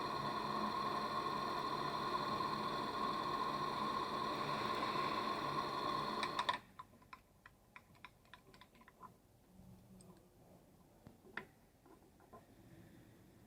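A metalworking machine tool running with a steady whine, which cuts off suddenly about halfway through. Scattered light clicks and taps follow.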